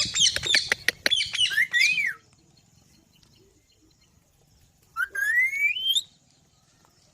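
Green parrot calling: a quick run of sharp chirps and squawks for about two seconds, then after a pause one long call that rises in pitch, about five seconds in.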